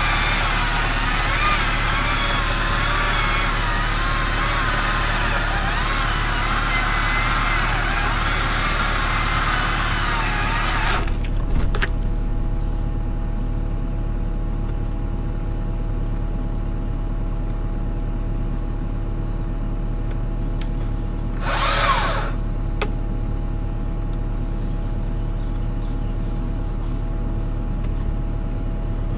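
A motor running steadily, with a loud noise over it that cuts off suddenly about eleven seconds in, and a short burst of noise near twenty-two seconds.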